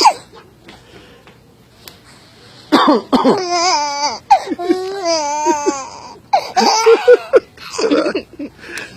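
A man coughs on purpose, starting about three seconds in, and a baby answers with peals of laughter that go on in bursts to the end.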